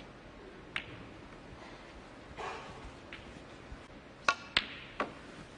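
Snooker shot: the cue strikes the cue ball and the balls click together sharply with a short ringing tone a little over four seconds in, followed by a second sharp click and a weaker knock. A couple of faint taps come earlier.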